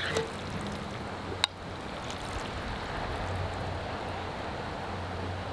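Steady wash of sea surf, with one sharp click of metal tongs against a stainless steel frying pan about a second and a half in.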